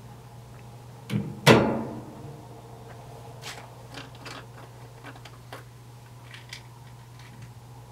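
A sharp knock about a second in, then a louder one that rings out briefly, followed by a scatter of small clicks and ticks as the red screw cap of a plastic pill bottle is twisted off, over a steady low hum.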